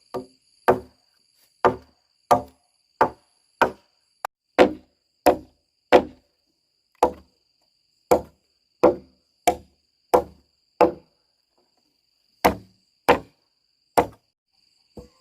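A hand tool delivering a steady series of dull, heavy blows, about one and a half a second, with two short pauses. A steady high insect drone runs underneath.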